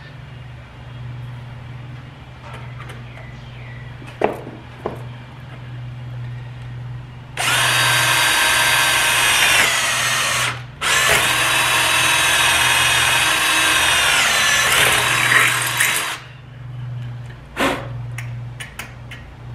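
Cordless drill boring a hole through a steel door hinge into a solar panel's aluminium frame: two runs of the motor's whine, about three and five seconds long with a short break between, the pitch dipping near the end of the second run. A few light clicks and taps before and after.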